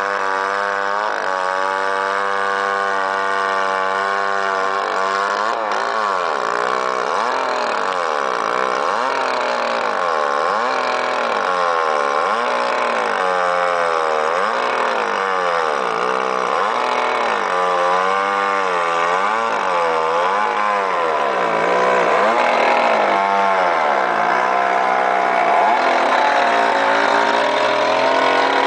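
ICS 633 gas-powered concrete chainsaw cutting through a concrete column under load. It runs at a steady pitch at first, then from about five seconds in the engine speed dips and recovers roughly once a second as the diamond chain bites into the concrete.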